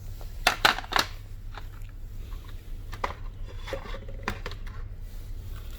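Handling of a smartphone's boxed accessories and packaging: a few short clicks and light rustles, the sharpest about half a second to a second in, over a steady low hum.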